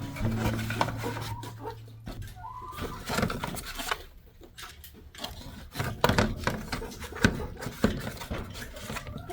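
Knocks and rustling from hands working in a wooden chicken coop's nest boxes while checking for eggs, with a few sharp raps about six to eight seconds in, and hens giving short calls.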